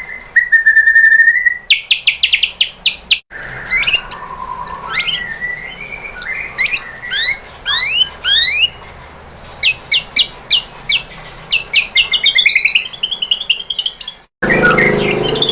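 White-rumped shama (murai batu) singing a fast, varied song of clear whistles, rapid repeated notes and rising and falling glides. The song breaks off abruptly twice, once about three seconds in and once near the end, where the recording is cut.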